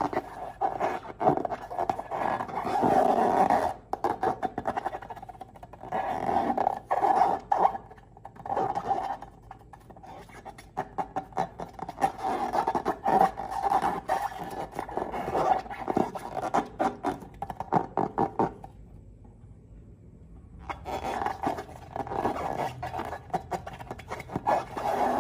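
Glossy slime squished and pressed by hand, giving bursts of wet, crackling squelches with dense small clicks, broken by a pause of about two seconds near the end.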